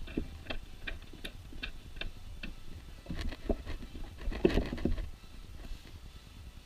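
Ratchet wrench clicking in an even run of ticks, about three a second, as the starter's mounting bolts are run in, then a busier cluster of clicks and knocks around the middle.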